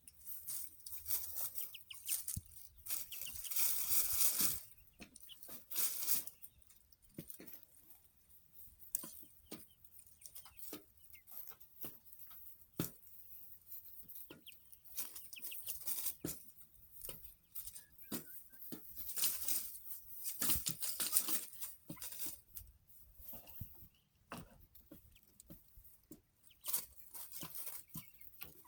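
Growing chickens moving about: many short scratching and pecking clicks, bursts of rustling and wing flapping, and a few short calls.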